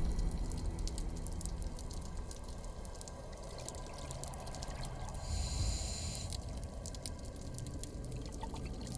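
Underwater sound of a scuba diver breathing. A hiss of air through the regulator comes about five seconds in, over a bubbly wash and a steady crackle of faint clicks.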